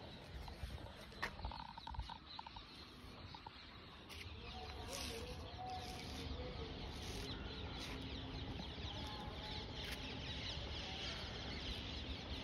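Many birds chirping and calling, a dense twittering that gets louder about four seconds in, over a low steady rumble.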